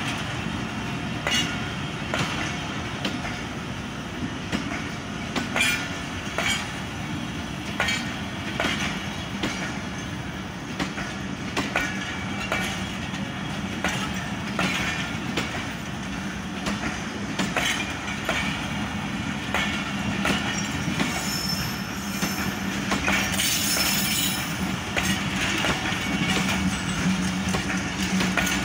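Pakistan Railways passenger coaches of the departing Jaffer Express rolling past, their wheels giving irregular sharp clacks over the rail joints over a steady rumble. There are brief high wheel squeals a little past two-thirds of the way through.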